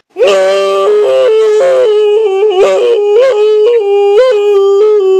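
A person's loud, sustained, high-pitched vocal wail, starting abruptly and held on one note with repeated quick yodel-like flips upward in pitch.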